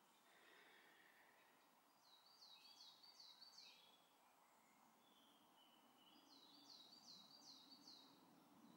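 Faint song of a small woodland bird: two phrases, each a run of about five quick, high, falling notes at about three a second, the first about two seconds in and the second about six seconds in.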